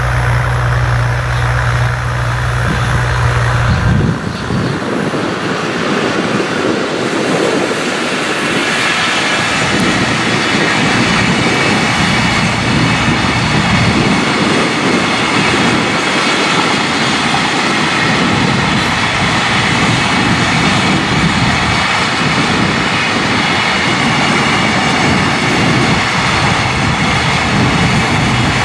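A low steady hum, cut off abruptly about four seconds in. Then a long container freight train rolls past, its wagons' wheels rumbling and clattering on the rails with a faint steady ringing above, continuing to the end.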